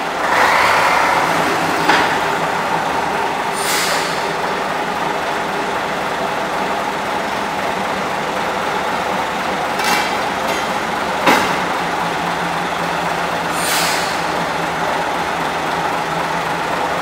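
Small diesel shunting locomotive's engine running steadily as the locomotive moves slowly, with a few short hisses of air over the steady engine note.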